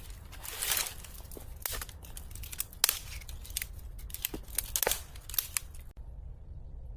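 A quick series of short, crisp snipping or rustling sounds, about a dozen in six seconds, stopping abruptly about six seconds in.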